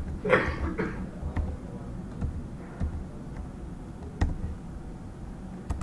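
A few sharp, scattered computer-mouse clicks over a low, steady room hum, with a brief vocal sound from the presenter just after the start.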